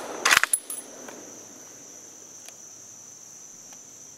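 A 1903 Springfield's bolt being worked after a shot: a quick run of sharp metallic clacks just after the start, then a few faint ticks. A steady high insect drone continues underneath.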